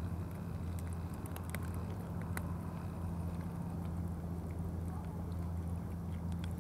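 Cats eating wet food from plastic trays: faint scattered clicks of chewing and lapping over a steady low hum.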